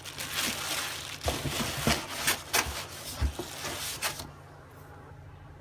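Packaging being handled as a pressure washer wand is taken out of its box: rustling and scraping with several sharp knocks, stopping about four seconds in.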